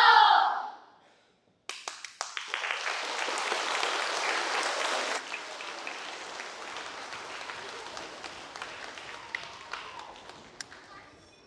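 The tail of children singing ends, and after a moment's pause an audience breaks into applause. The clapping is strongest for the first few seconds, then drops suddenly and thins out toward the end.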